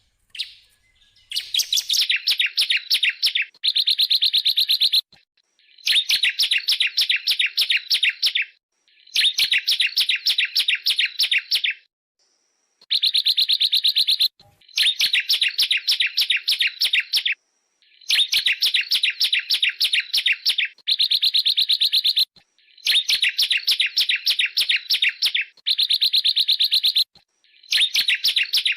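Bar-winged prinia (ciblek) singing rapid, drill-like trills, in about eleven phrases of one and a half to three seconds, each separated by a short pause.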